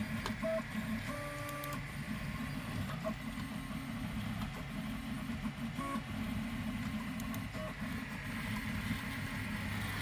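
3D printer running, its stepper motors humming steadily, with a few short pitched whines as the print head moves, the clearest about a second in.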